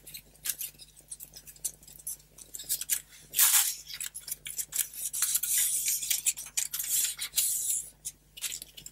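Accordion-pleated paper being pressed and handled: dry rustling and crackling of the folded pleats. There is a louder rustle about three and a half seconds in, and near-continuous rustling through the second half.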